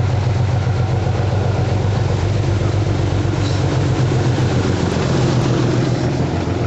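Class 37 diesel-electric locomotive passing close by, its English Electric V12 diesel engine running loud and steady. The sound eases slightly near the end as the coaches follow.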